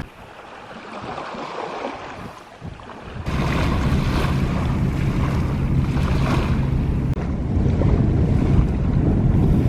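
Wind buffeting the microphone by the water, quieter at first and then jumping to a loud low rumble about three seconds in, with a steady low hum underneath for a few seconds.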